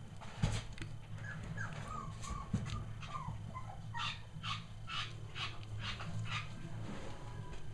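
Three-week-old Cavalier King Charles Spaniel puppies squeaking and whimpering as they wrestle, with a quick string of short, sharp yips about halfway through.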